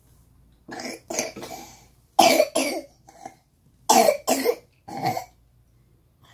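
A person coughing close by: about eight short, harsh coughs in three bouts of two or three.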